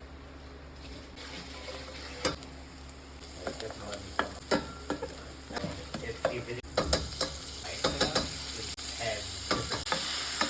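Food sizzling in a frying pan, the hiss building and growing louder, with repeated clicks and knocks of a utensil stirring against the pan.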